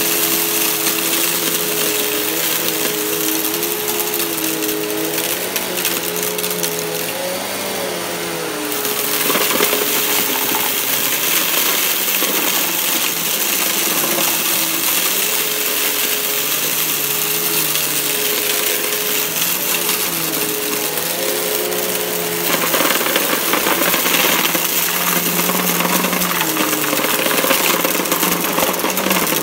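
Riccar bagged upright vacuum running on carpet, its motor humming with a tone that wavers in pitch, while it sucks up fine dirt and crunchy debris that clicks and rattles through the nozzle. It gets louder about two-thirds of the way in.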